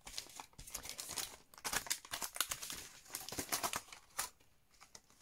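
Clear plastic sleeves holding metal cutting dies crinkling and rustling as they are handled and shuffled on a table, in irregular crackles that die away near the end.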